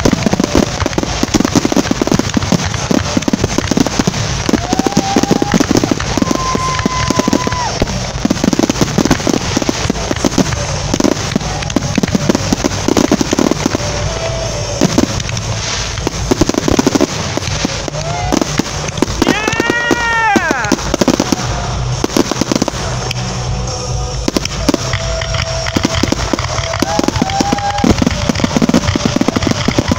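Fireworks grand finale: a continuous, rapid barrage of shell bursts, bangs and crackling. A few short whistling tones rise and fall over it, the clearest about two-thirds of the way through.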